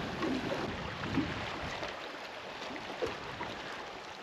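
Water lapping against the hull of a small boat drifting on a fast-running tide, with a few soft knocks and a light rush of wind.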